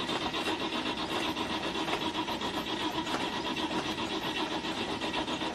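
Car engine being cranked by its starter motor in a steady, rhythmic grind of about four to five pulses a second, without catching: typical of an engine that won't start, here thought to be flooded.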